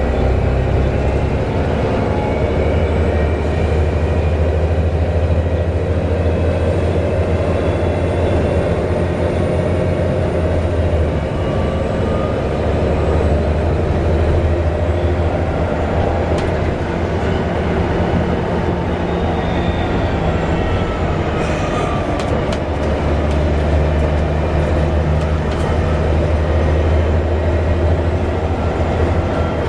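Volvo B7TL double-decker bus engine and drivetrain running under way, heard from inside the bus: a steady low drone whose pitch shifts a couple of times as the gears change, with a faint whine above it and light rattles in the second half.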